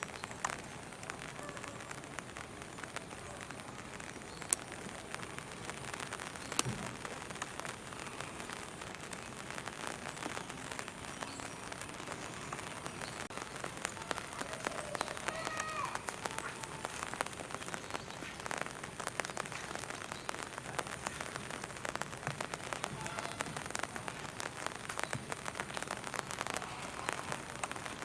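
Steady rain pattering, a dense mesh of small drop ticks, with two sharp knocks about four and a half and six and a half seconds in.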